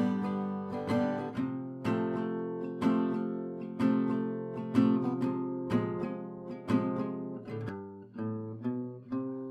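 Background music: acoustic guitar strummed in an even rhythm, about one strum a second.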